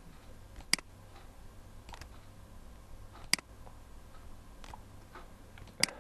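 Computer mouse button clicking: three sharp clicks a few seconds apart, with a few fainter clicks between them, over a faint low hum.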